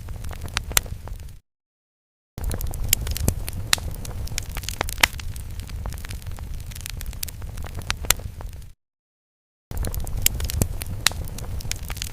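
Crackling fire sound effect: a low rumble of flames with many sharp crackles and pops. It cuts to about a second of dead silence twice, near the start and about three-quarters through, where the looped effect starts over.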